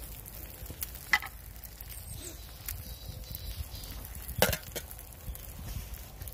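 Eggs frying in a pan over campfire embers with a faint, steady sizzle. A metal spatula clinks twice against an enamel plate; the louder clink comes about four and a half seconds in.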